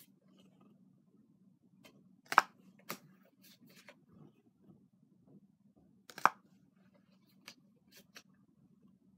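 Pokémon trading cards being handled: two loud, sharp snaps, about two and a half and six seconds in, with quieter clicks between them, over a low steady hum.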